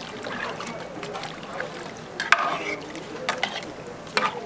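Cooking utensils knocking and scraping against cookware, with sharp clinks about two, three and four seconds in, the first the loudest.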